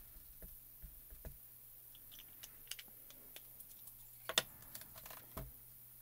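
Light scattered taps and clicks of a clear stamp being inked from a dye ink cube, then a sharp knock about four and a half seconds in and a duller one about a second later as the hinged clear lid of a stamp positioning tool is brought down onto the card.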